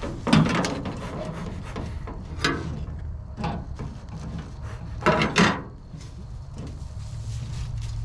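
Bee smoker's bellows being pumped by hand to get a pine-needle fire going: about six short puffs of air with a rubbing creak, irregularly spaced, the strongest just after the start and two close together a little past the middle.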